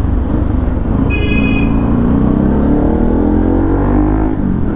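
Motorcycle engine running under way in traffic, its revs climbing for about two seconds and dropping near the end. A vehicle horn beeps briefly about a second in.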